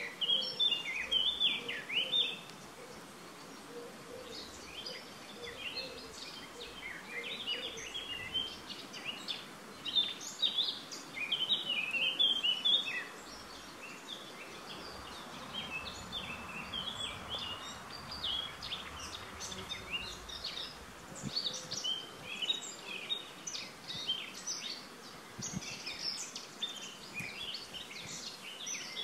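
Several small birds chirping and singing, many short overlapping calls, over a steady background hiss. The chirping thins out briefly around the middle, then picks up again.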